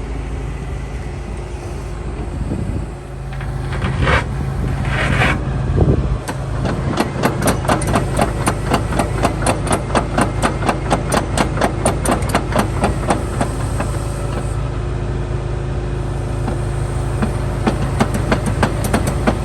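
Hitachi ZX225USR-6 crawler excavator's diesel engine running steadily under hydraulic load, with a few short hydraulic and metal noises a few seconds in as the machine lifts one side. Then the raised steel track turns, its links clanking in a steady rhythm of about three a second, easing off after a while and picking up again near the end.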